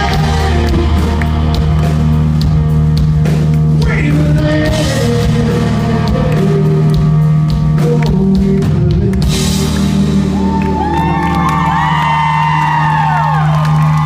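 Live rock band playing loud and steady, with amplified electric guitar and a singer at times. In the last few seconds, high sliding notes rise and fall over the music.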